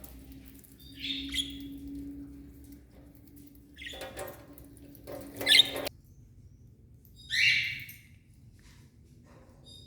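Cage birds calling: four separate calls, the loudest about five and a half and seven and a half seconds in. Under them a low steady hum that cuts off suddenly about six seconds in.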